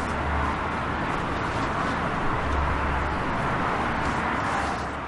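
Steady rushing noise with a low hum underneath, easing off slightly near the end.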